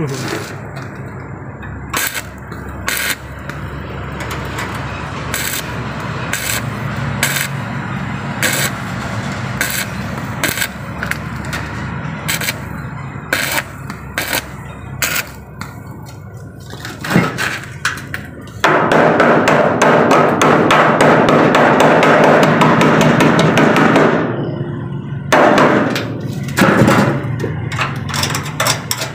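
Stick welder arcing on a car's steel door and roof frame. There are sharp crackles and clicks from short welds through the first half, then a loud, steady crackling hiss for about five seconds past the middle as a longer bead is run, and more short crackles near the end.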